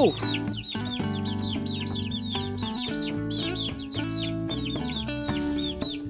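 Young chicks peeping, a steady run of short, high chirps several times a second, over background music with sustained notes.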